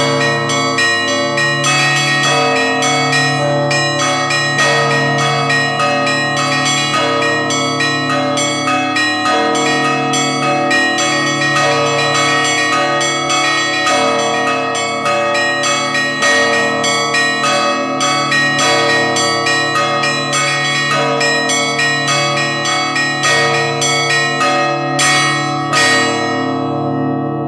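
Russian Orthodox church bells of the Moscow Kremlin pealing: many small bells struck rapidly in a rhythmic pattern over deep, sustained larger bells. Near the end the last strikes come and the peal rings out.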